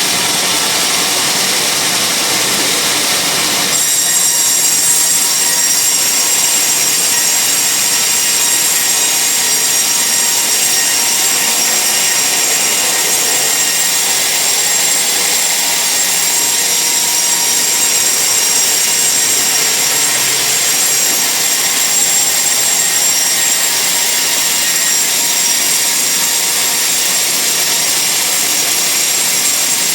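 Band sawmill cutting through a large log: a steady, continuous saw noise, with a higher whine joining about four seconds in.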